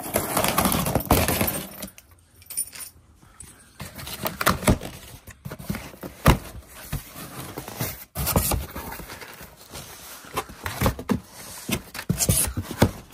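Cardboard shipping box being torn open by hand: tape and cardboard ripping, flaps rustling, and crumpled packing paper crinkling, in irregular rips and rustles.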